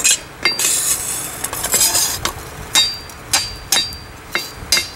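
Hand hammer striking a hot steel plate on a Peter Wright anvil, about two irregular blows a second, several leaving a brief high metallic ring. The smith is hammering a textured bevel along the plate's edges.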